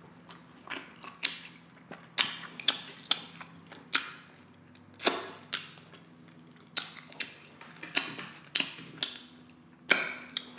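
Close-miked wet mouth clicks and smacks of chewing a mouthful of glazed rib meat: sharp, irregular clicks about twice a second.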